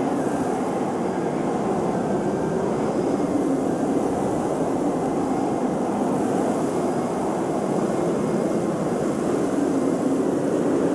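Blizzard wind blowing steadily, a continuous rushing roar with no let-up.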